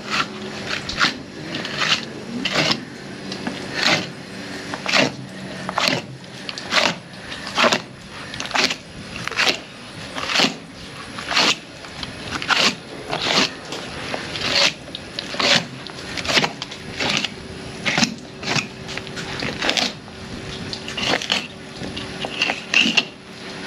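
Fillet knife strokes slicing along the inside of an alligator gar's tough scaled hide, separating skin and flesh: a short cutting sound repeating about once or twice a second.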